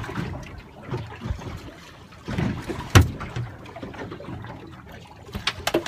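Water dripping and trickling as a freshly caught squid is handled, with scattered knocks. A sharp knock comes about three seconds in, and a quick run of clicks near the end.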